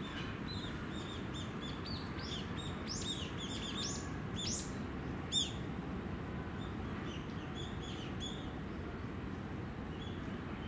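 Small birds chirping in quick short notes, thickest in the first half, with one sharper, louder chirp about five seconds in, over a steady low outdoor rumble.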